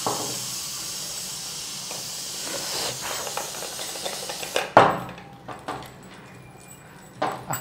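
Steam hissing steadily out of a pressure cooker's vent as the whistle weight is held up to let the pressure out; the cooker is still pressurised, which keeps the lid locked shut. About four and a half seconds in comes a sharp metal knock, then the hiss dies away, leaving a few small clicks.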